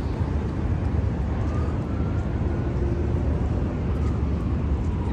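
Steady low rumble of a vehicle in motion, with faint higher tones drifting over it.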